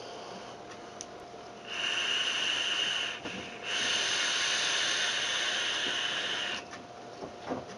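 Vaper drawing on a rebuildable dripping atomizer (Tugboat V2) fired at 20 watts on a 1-ohm coil: a steady hiss of air and vapour through the atomizer in two pulls, a short one about two seconds in and a longer one of about three seconds just after.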